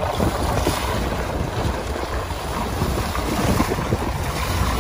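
Wind buffeting the microphone aboard an open sportfishing boat at sea, over the wash of waves and water. A steady rushing noise with a low rumble.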